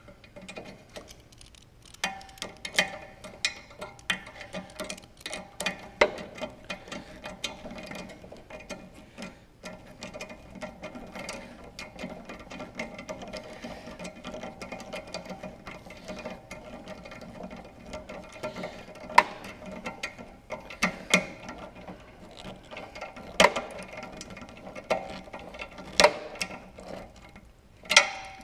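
Socket ratchet clicking steadily as it tightens the nuts on the bolts of a snowblower impeller extension kit, with a few louder metal knocks from the socket and extension against the impeller and housing.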